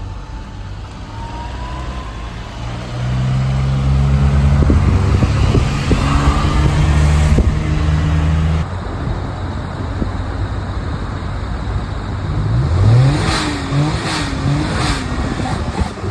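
Small engine of a Honda Acty kei truck running under way at a steady pitch. Later its revs rise and fall several times in quick succession near the end.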